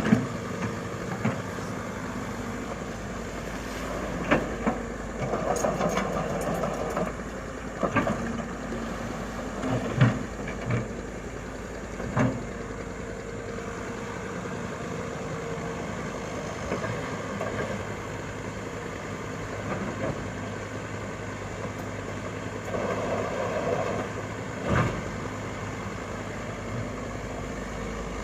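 Komatsu excavator's diesel engine running steadily, with scattered sharp knocks and clanks and two short rushing noises.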